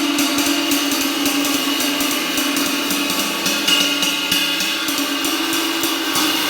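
A cracked 24-inch ride cymbal played repeatedly with a stick as a sound test, several strokes a second over a sustained shimmering wash. The ringing starts to die away near the end.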